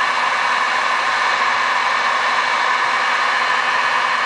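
Electric heat gun running steadily, blowing hot air at point-blank range onto vinyl wrap film: an even rush of air with a faint hum.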